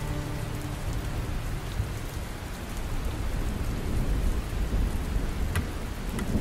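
Steady rain falling, with a low rumble of thunder underneath and a few sharper drop ticks near the end.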